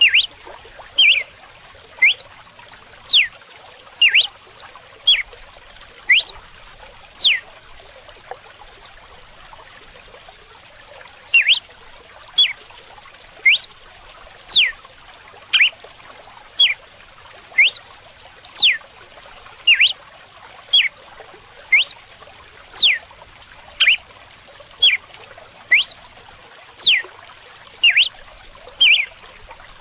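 Red-cowled cardinal singing its 'açoite' (whip) song: a run of short, sharp whistles that sweep steeply downward, about one a second, with a pause of a few seconds about a third of the way in. Under it runs a steady trickle of flowing water.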